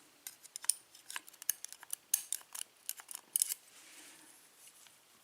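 Rapid, light metallic clicks and ticks as spool top pins and their springs are taken out of a euro cylinder lock during gutting. The clicks die away a little past halfway.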